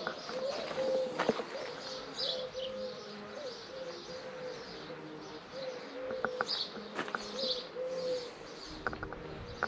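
Doves cooing over and over in low, soft phrases, while a small bird gives short high chirps every second or so.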